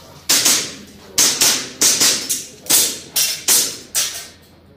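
Airsoft pistol firing a string of about nine sharp shots, many in quick pairs with short pauses between them, each shot cracking and dying away fast.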